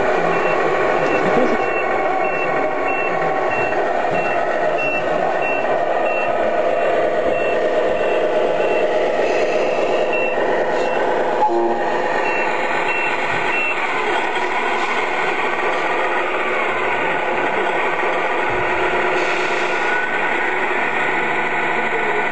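Radio-controlled scale-model truck's sound module playing a steady series of electronic reversing beeps, which stop about halfway through, over steady background noise.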